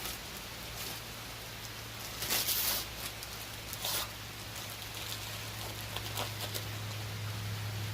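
Old window screen mesh rustling and scraping as it is pulled out of its frame, in a few short bursts, over a steady low hum.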